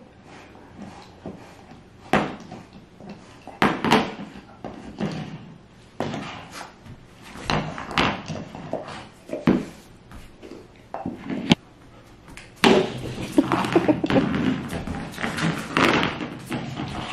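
A large dog gnawing a hard rubber gingerbread-man chew toy, with irregular knocks and clatters as the toy and her paws hit the hardwood floor. The knocking gets busier and louder about three-quarters of the way through as she starts moving around with the toy.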